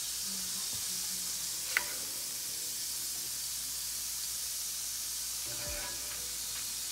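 Rendered beef and chorizo fat sizzling steadily in a cast-iron skillet as a spoon scrapes out the browned meat, with one sharp clink a little under two seconds in.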